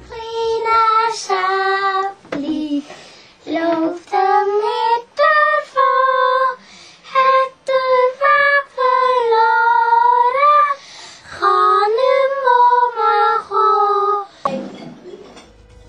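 A young child singing a song unaccompanied in a high voice, holding each note, with short breaks between phrases.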